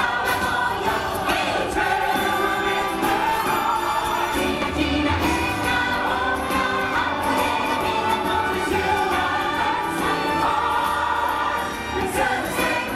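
Show music: a choir singing over a full musical backing, continuous and steady in level.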